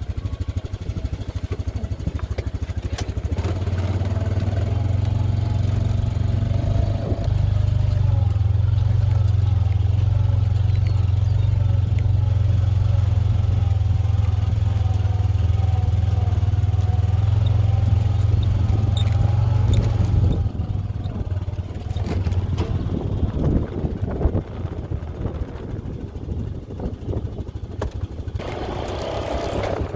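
Honda side-by-side utility vehicle's engine running under way, with rattling. It holds a loud, steady drone through the middle, then drops about two-thirds through to a quieter, uneven running with clatter.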